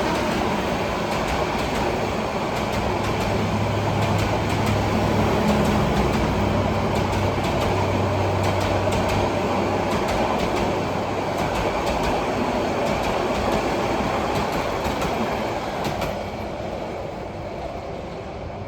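Sonar Bangla Express passenger train passing at speed: a steady loud rumble with wheels clattering on the rails. It fades away over the last few seconds as the train moves off.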